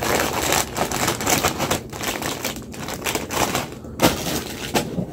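Clear plastic zip bag crinkling and crackling in the hands as orange chips are bagged, a dense run of rustles and crackles with a few sharper crunches.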